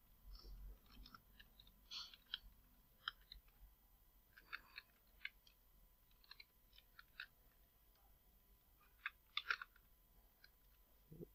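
Faint computer keyboard keystrokes, scattered in small runs of clicks with near silence between them.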